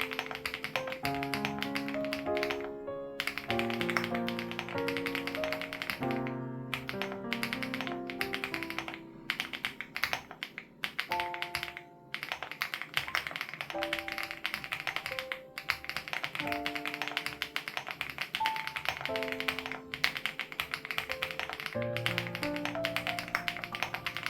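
Fast, continuous typing on a Crush80 Reboot mechanical keyboard with HMX Hyacinth switches, the keystrokes clicking in rapid runs with several short pauses. Gentle background music with held melodic notes plays under the typing.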